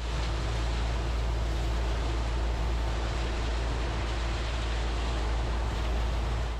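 New Holland TR99 combine running steadily, a deep rumble with a broad mechanical noise over it. It fades in and out.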